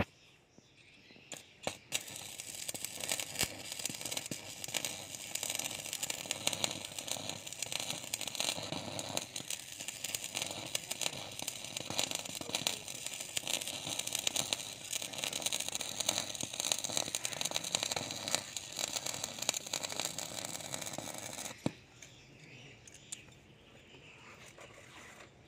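Arc of an inverter stick welder's electrode burning through a steel rebar to cut it: a steady crackling sizzle that starts about two seconds in after a brief strike and cuts off suddenly a few seconds before the end.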